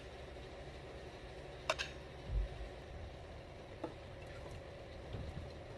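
Quiet room with a few small handling noises: a sharp click under two seconds in, a soft low thump shortly after, and a faint tick near four seconds.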